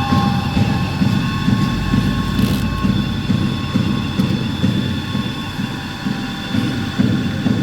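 Automatic paper log saw cutting machine running, with a low thud repeating about twice a second and a steady high whine over it.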